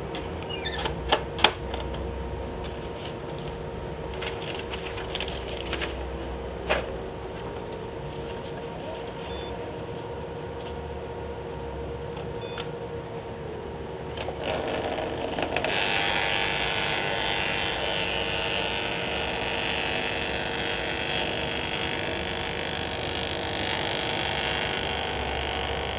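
Thermal stencil machine: a few sharp clicks as the stencil sheet and original are loaded, then, a little over halfway, its feed motor starts and runs steadily, drawing the paper through with a whir and rustle.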